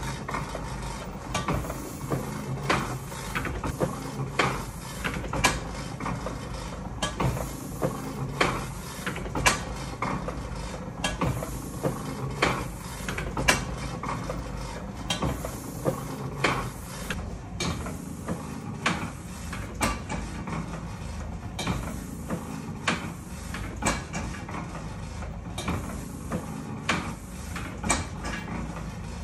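Motor-driven platen letterpress running, its platen and inking rollers cycling with a sharp clack about every 1.3 seconds over a steady low motor hum.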